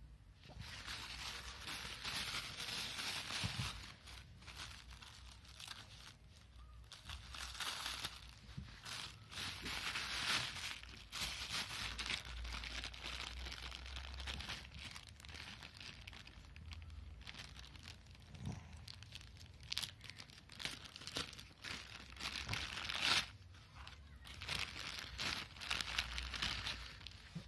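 Plastic packaging crinkling and tearing in irregular bursts as a plastic mailer and clear plastic bags are opened and handled by hand.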